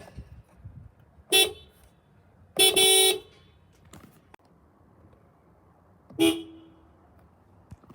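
Small factory car horns giving 'meep' honks three times: a short toot, a longer one about a second later, and another short toot near the end.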